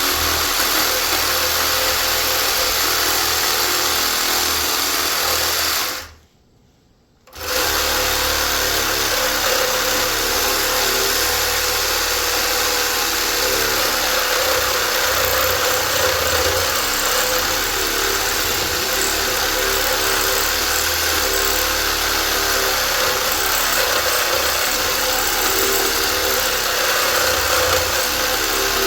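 Cordless reciprocating saw fitted with a Diablo blade cutting into the metal casing of a large electric motor, running steadily. It stops for about a second around six seconds in, then starts cutting again.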